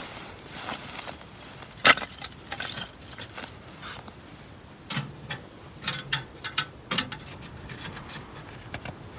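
Split firewood knocking as the pieces are set down in a pile, then scattered clicks and a metallic ring from a small steel tent wood stove's door being unlatched and swung open.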